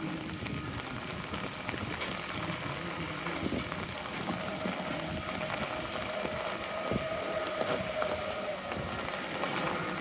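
Rain falling on an umbrella and wet pavement: a steady hiss with scattered faint drop ticks. A faint steady hum comes in near the middle and fades out after about four seconds.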